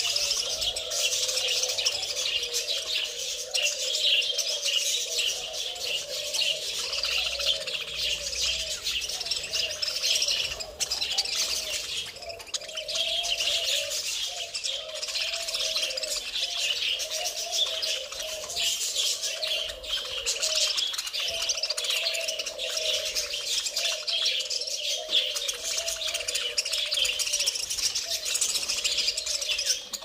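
A flock of budgerigars chattering and chirping without a break, many birds warbling over one another.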